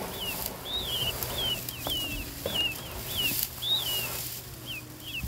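Attwater's prairie-chicken chicks peeping over and over: short, high calls that rise and then fall, about two a second.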